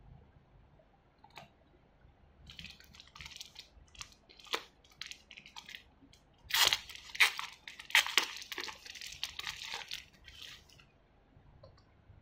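Small clear plastic bag crinkling as fingers handle it, with a few sharp clicks mixed in. The crinkling comes in uneven bursts and is loudest a little past the middle, then stops about two seconds before the end.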